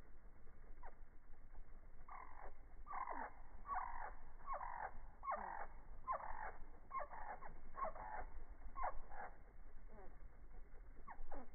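Hummingbird calls slowed down with the slow-motion footage, so they come out low and harsh. A run of about ten downward-sliding calls, roughly one every 0.7 s, with a couple more near the end.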